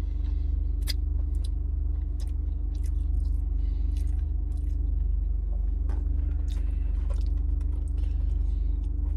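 A person chewing garlic fries and licking his fingers, with scattered short clicks and rustles from the plastic fries container. A steady low hum runs underneath in the car cabin.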